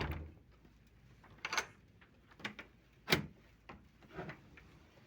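A series of five short knocks and clatters spread over a few seconds, the loudest about three seconds in.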